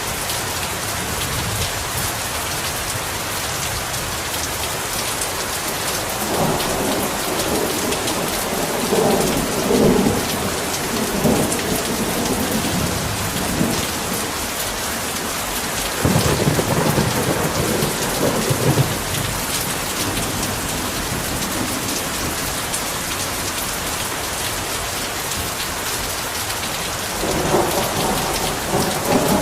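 Heavy rain falling steadily. Thunder rumbles in three rolls: one starting about six seconds in, another about sixteen seconds in, and a third near the end.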